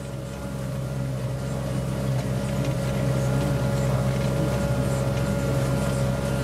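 New Holland T7070's six-cylinder diesel engine running steadily under load while pulling a plough, its level rising over the first few seconds and then holding even.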